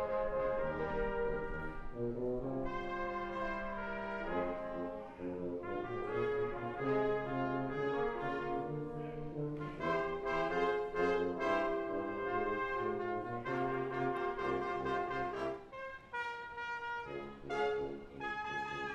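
Brass quintet of two trumpets, French horn, trombone and tuba playing an arranged pop medley in full chords, the harmony moving every second or so. About three-quarters of the way through the sound briefly drops away, then comes back in short, punchy notes.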